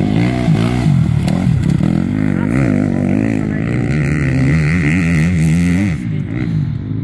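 Enduro motorcycle engine revving up and down repeatedly as the bike rides through a dirt-track course, the pitch climbing and dropping with each throttle change. It grows fainter about six seconds in as the bike moves away.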